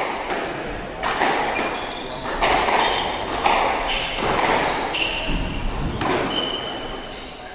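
A squash rally: sharp echoing smacks of the ball off the racquets and the walls, several a second, with short high squeaks of court shoes on the wooden floor.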